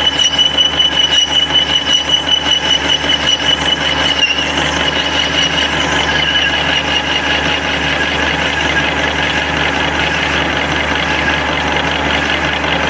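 Lathe with a carbide insert facing a steel disc whose outer zone is hardened. For the first four seconds or so the cut gives a loud, high-pitched whine that pulses several times a second, the sound of cutting high-hardness steel. After that it settles into a steadier, duller cutting noise as the tool reaches the softer middle.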